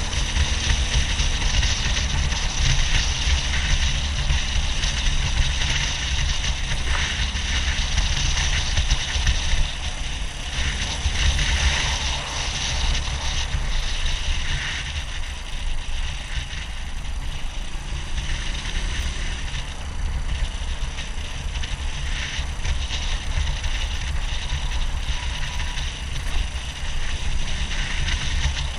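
Suzuki DR200 dual-sport motorcycle's single-cylinder engine running steadily while being ridden off road, with wind rushing over the microphone and scattered rattles and clicks from the bike.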